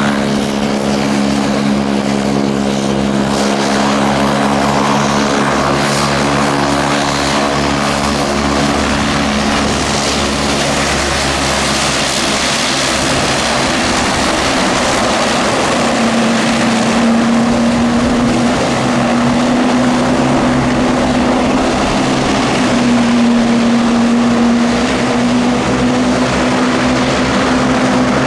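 Saab 340B's twin General Electric CT7 turboprop engines running on the ground, a loud, steady propeller drone with several held tones. About halfway through, a slightly higher tone comes in and wavers.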